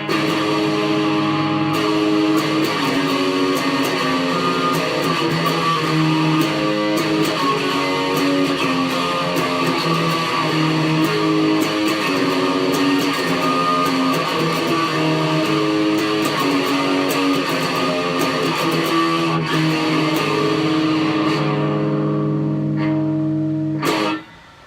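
Electric guitar being played: sustained notes and chords that change every second or two, cutting off suddenly near the end.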